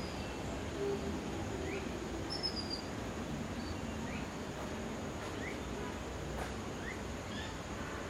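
Forest ambience: a steady high-pitched insect drone under a low rumble of background noise, with short rising bird chirps repeating every second or so and a few brief higher whistles.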